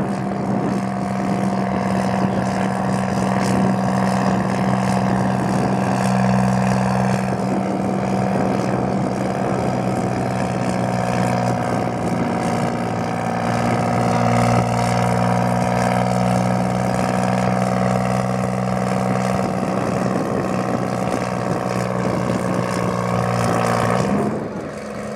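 Chamberlain Super 70's GM 3-71 two-stroke diesel engine running steadily at full throttle, labouring as it drags a weight-transfer pulling sled. The engine note changes and the sound drops away a little near the end.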